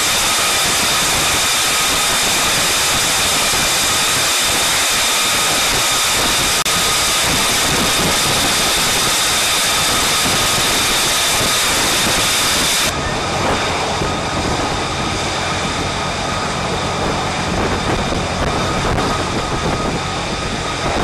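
F-35B Lightning II's Pratt & Whitney F135 jet engine running, a loud steady noise with a high whine over it. About two-thirds of the way through the sound turns suddenly duller and a little quieter.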